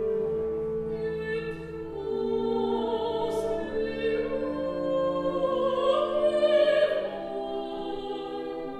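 Chamber orchestra holding long sustained notes while a female soloist sings in an operatic style, her voice wavering as it rises and swells to its loudest about six to seven seconds in.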